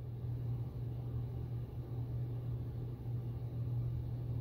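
A steady low hum with faint background noise.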